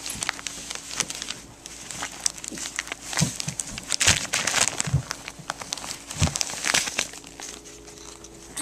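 A dog chewing and tugging at a newspaper: irregular crinkling and crackling of paper in its mouth, with a few dull knocks, busiest in the middle and again about six to seven seconds in.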